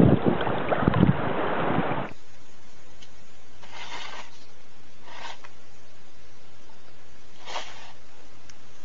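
Water splashing around a swimming cat, with wind on the microphone, cutting off suddenly after about two seconds. A steady low hum follows, with a few faint short scuffing sounds.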